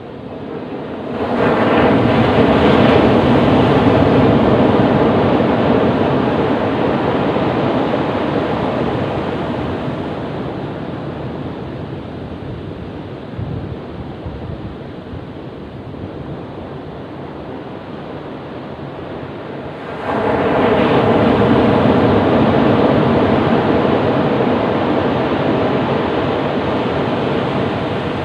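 Ocean waves breaking on a beach: two big waves crash, one about a second in and another near the end, each a quick swell of rushing surf that slowly fades into the steady wash between them.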